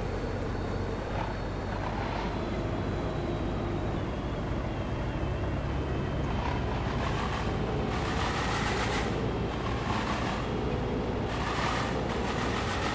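Road traffic: a steady low rumble of vehicles, with several rushing whooshes of vehicles going past in the second half.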